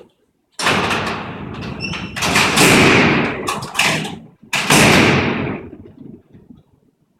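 Alcatraz's heavy steel cell doors rolling along their tracks with a long metallic rumble, then slamming shut about four and a half seconds in with a loud clang that rings and echoes down the cellblock.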